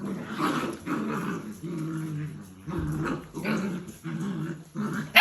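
Belgian Malinois puppy growling in a run of short growls, about seven in all, one after another with brief pauses between.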